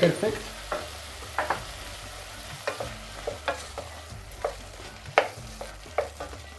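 Chopped onion and tomato frying in oil in a pan, with a steady sizzle, while a spoon stirs them, knocking and scraping against the pan at irregular moments.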